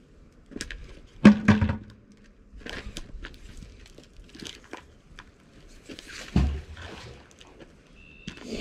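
Handling noise from a magnet-fishing magnet and rope: clicks, knocks and scraping as a rusty railroad spike is pulled off the magnet, the loudest a sharp knock a little over a second in. About six seconds in comes a dull thump with a hiss as the magnet is dropped into the river.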